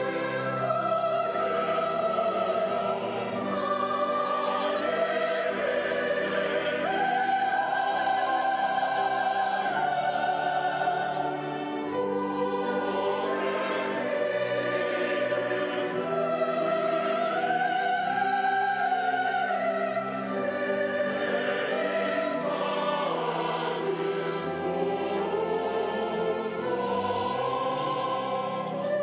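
Church choir singing a slow anthem with orchestral accompaniment, long held sung notes rising and falling in pitch.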